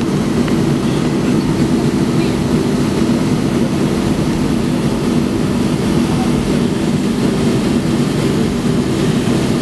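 Steady, loud rumble of a Boeing 737-500's CFM56-3 turbofan engines heard inside the passenger cabin as the airliner rolls along the runway for takeoff.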